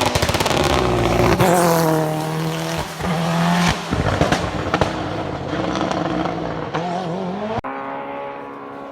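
Race car engine at full throttle on a hillclimb, revving hard and changing gear several times, with sharp cracks from the exhaust near the start. About seven and a half seconds in the engine note drops away and fades as the car moves off up the hill.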